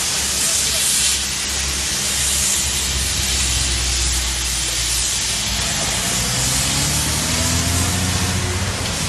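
A steady hiss throughout. In the second half a heavy diesel truck's engine comes in, rising in pitch as the truck pulls up close.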